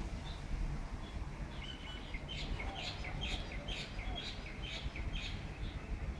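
A bird calling: a run of about eight short chirps, roughly two a second, starting about two seconds in, over a low steady rumble.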